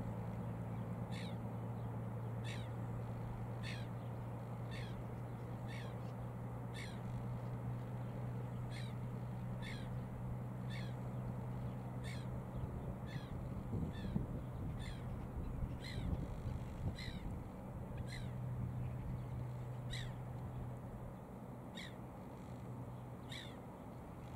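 A bird calling over and over, one short call roughly every second, over a steady low hum.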